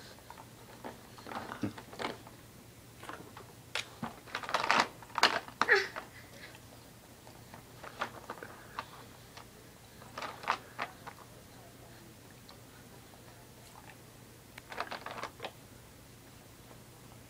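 Short clusters of clicks and clatters from the plastic toys of a baby's activity saucer being batted and handled, loudest about five seconds in.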